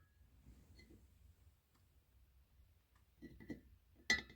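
Metal chainsaw cylinder being handled against a metal lathe plate. It is mostly quiet, with a few light metallic clinks a little over three seconds in and a sharper clink near the end.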